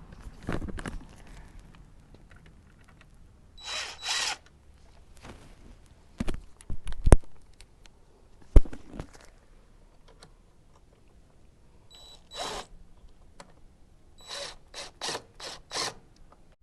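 A ratchet clicking in short bursts as bolts on a motorcycle headlight bracket are snugged down, ending in a run of five quick strokes. A few sharp metallic knocks in the middle are the loudest sounds.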